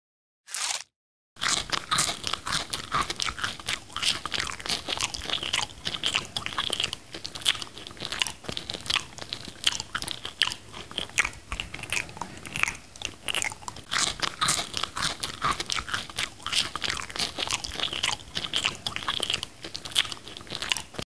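Close-up biting and chewing of mango slices: a dense, irregular run of crunches and mouth clicks, starting about a second and a half in after a brief sound.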